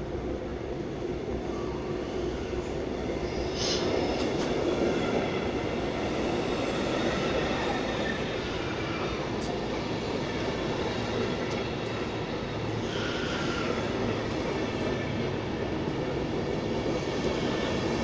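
Intercity train pulling into an underground station platform: the steady rolling rumble of its coaches passing at low speed, with a couple of brief higher squeals from the wheels and brakes.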